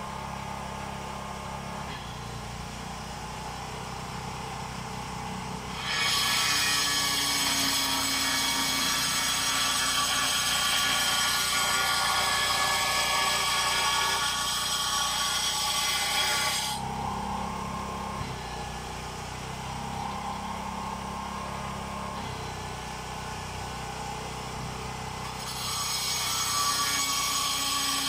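A small engine running steadily at low speed, then revving up hard with a loud, high whine about six seconds in for about ten seconds, dropping back, and revving again near the end.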